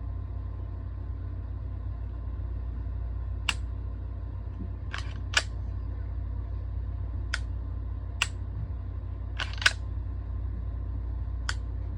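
Canik TP9SF Elite pistol's trigger being dry-fired and worked by hand: about eight sharp clicks at uneven intervals, some in close pairs, over a steady low hum.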